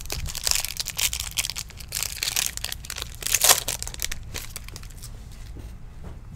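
Foil wrapper of a Topps Chrome baseball card pack being torn open and crinkled, a dense crackling that is loudest about three and a half seconds in and then dies down to faint handling.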